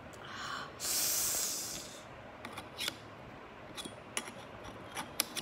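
Handling noise as an eyepiece is fitted into a compound microscope's chrome eyepiece tube. A brief hissing rustle comes about a second in, then a scatter of small sharp clicks and taps.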